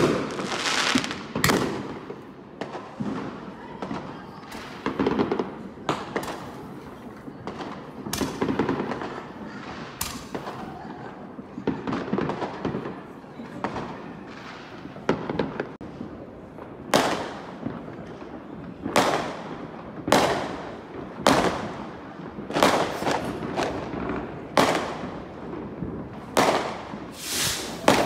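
Aerial fireworks going off: a run of sharp bangs, each trailing off, at irregular intervals. They are sparse at first and come about once a second over the last ten seconds.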